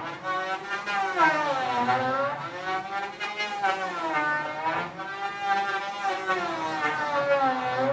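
Electric hand planer's motor whining loudly, its pitch sagging and climbing back again several times, about every two seconds.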